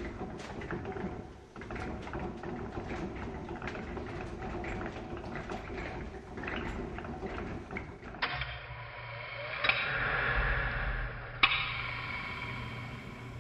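Designed title sound of sand trickling over metal gears, a dense grainy crackle of many small ticks. After about eight seconds it changes abruptly to a steady low hum with a hiss on top, broken by two sharp clicks, the second the louder.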